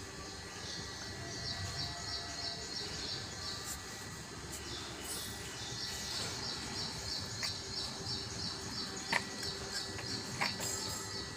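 A small bird chirping over and over, a fast run of short high notes at about three a second over steady outdoor background noise. A few sharp clicks come in the last few seconds.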